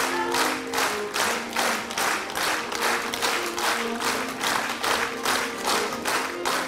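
Theatre audience clapping in unison, a steady rhythm of about three claps a second, with music playing faintly underneath.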